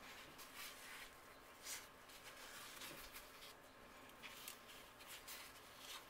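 Faint rustling and rubbing of white cloth gloves handling a Pentax K-3 DSLR body as it is turned over, a scatter of soft brushes over a low steady hiss.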